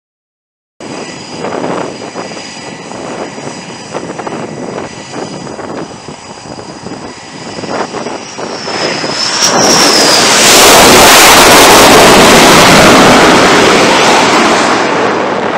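Silence for the first second, then a steady high jet-engine whine with rumbling noise. About ten seconds in this swells into a loud jet roar as a jet comes in low over the flight deck, easing off near the end.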